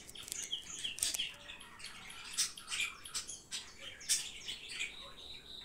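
Hands pressing and patting a round of soft, buttered yeast dough flat on a stone countertop: a run of short wet smacks and squelches, with a few brief high squeaks.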